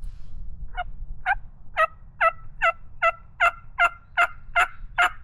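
Turkey yelping: a series of about eleven short, evenly spaced notes, roughly two and a half a second, starting a moment in and growing louder toward the end.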